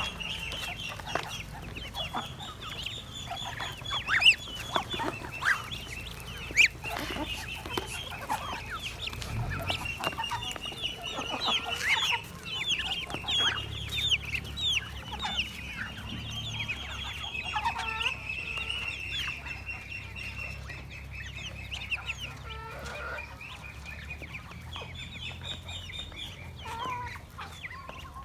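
A flock of ducklings peeping continuously, many high, short chirps overlapping, with a few louder sharp calls standing out early on.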